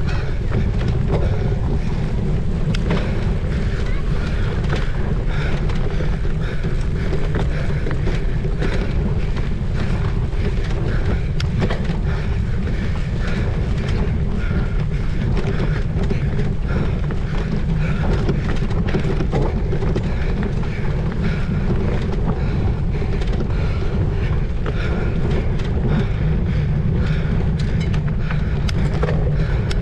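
A cyclocross bike ridden hard over rough ground. Wind rushes steadily on the microphone over a constant low rumble, with many small knocks and rattles from the bike.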